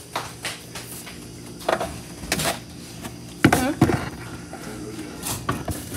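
Handling noise from a phone being carried about: scattered knocks, rustles and thumps, the loudest cluster about three and a half seconds in, mixed with a couple of brief vocal sounds.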